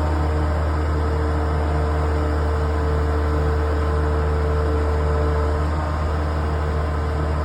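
Grapple truck's engine running steadily at a constant speed: a low drone with a steady whine above it, and no change in pace.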